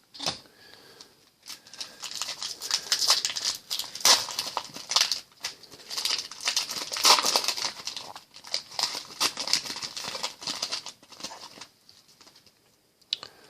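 A foil trading-card pack wrapper being torn open and crinkled, with the cards handled, in a dense run of crackles and clicks that stops a couple of seconds before the end.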